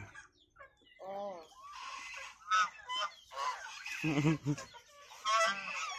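A flock of white domestic geese honking, a string of short calls following one another about a second apart, one of them lower and stuttering about four seconds in.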